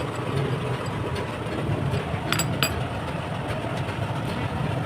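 Engine idling steadily with a low, even rumble, with two short clicks a little past the middle.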